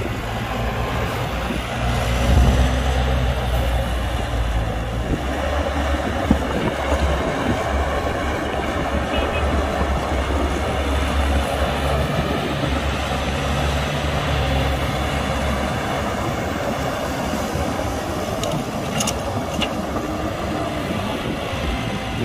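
Caterpillar hydraulic excavator's diesel engine running under load as it digs and loads dirt, the engine note swelling for long stretches and easing off near the end.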